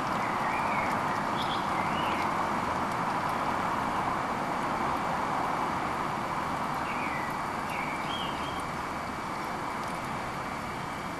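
Steady rushing background noise in a garden, with a few faint, short bird chirps twice in quick clusters.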